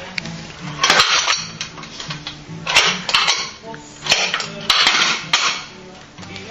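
Plastic pump-action spinning top being pumped by its plunger handle: several short bursts of rattling clatter about a second apart, over a steady low hum from the spinning top.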